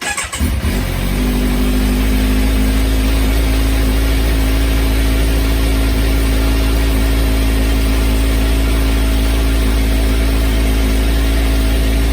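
Kawasaki Ninja 1000 (Z1000SX) inline-four with an aftermarket titanium full exhaust system starting up, catching unevenly for about a second, then idling steadily until it is switched off at the end.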